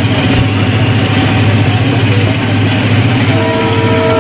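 Diesel locomotive running at speed alongside, a loud steady low drone. About three seconds in, a locomotive horn starts sounding, several notes held together.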